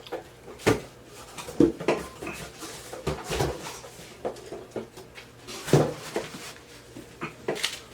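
Scattered clicks and knocks, about half a dozen, as a gift package and bottles of mambo sauce are handled and set down.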